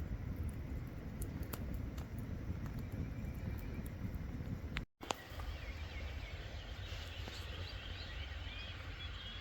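Outdoor ambience: a low, steady rumbling noise with scattered faint clicks, then, after an abrupt cut about halfway, birds chirping over the same rumble.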